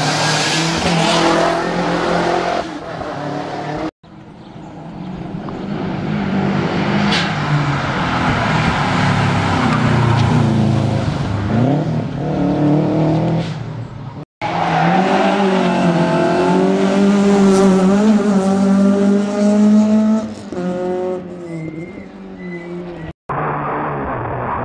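Rally car engines revving hard and rising and falling in pitch through gear changes as the cars pass, with some tyre squeal. The sound comes in several clips joined by abrupt cuts, about ten seconds apart.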